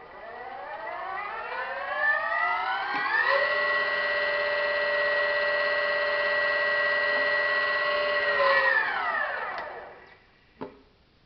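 Torqeedo electric outboard motor run out of water: a whine that rises in pitch as it spins up over about three seconds, holds steady for about five seconds, then winds down and stops. A single sharp click follows near the end.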